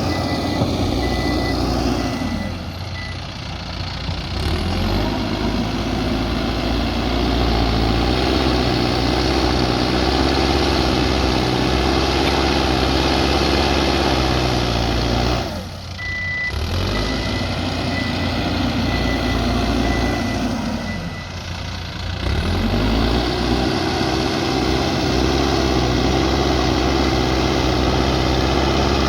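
Diesel engine of a backhoe loader working hard, easing off briefly three times and picking up again. A reversing alarm beeps near the start and again about halfway through.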